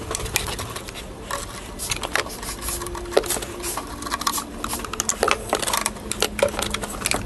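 Ratchet and 10 mm socket clicking and clinking against metal in irregular bursts as the bracket bolt is backed out of the golf cart engine.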